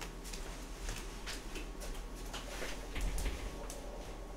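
Hot frying pan with leftover oil from grilling mackerel, crackling and spitting in faint, irregular pops over a low steady hum. A slightly louder low thud comes about three seconds in.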